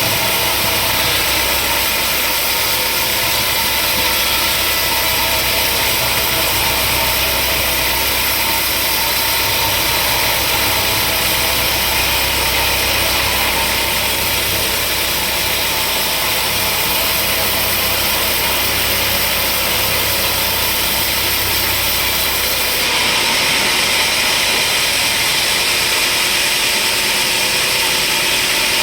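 Sawmill machinery running steadily with a loud, even mechanical drone; about three quarters of the way through, the low hum drops away and the high hiss grows stronger.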